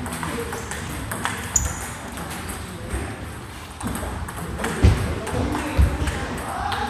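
Table tennis ball being struck and bouncing in play: sharp, ringing clicks of the ball off bat and table, with two heavier thuds about five and six seconds in.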